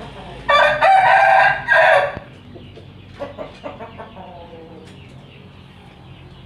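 Rooster crowing once, loud, from about half a second in for about a second and a half. Softer chicken clucks follow a second later.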